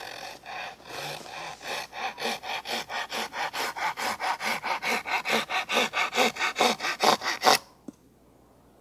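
Hand saw cutting across the end grain of a green birch spatula blank, in quick back-and-forth strokes about four or five a second. The strokes grow louder and stop abruptly about seven and a half seconds in.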